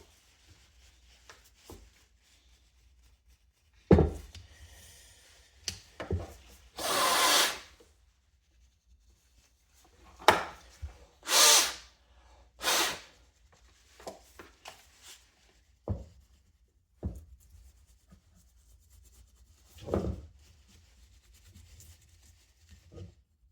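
Brisk scrubbing and wiping strokes on a dusty box-fan motor, scattered with a few sharp knocks as the fan parts are handled and set down.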